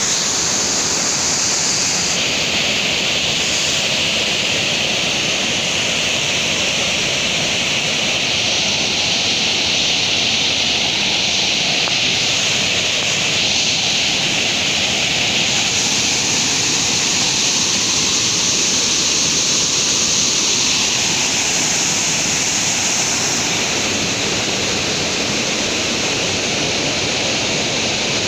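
Water pouring down a tall waterfall: a steady, unbroken rush of falling water.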